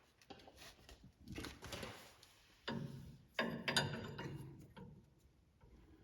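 Hand tools and small metal parts being handled: irregular clinks, knocks and scrapes, the loudest two about two and a half and three and a half seconds in.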